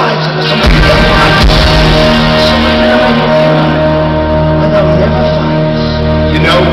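A live rock band with orchestral instruments playing loudly in a large hall, heard from the audience: sustained chords, with a heavy bass coming in just under a second in.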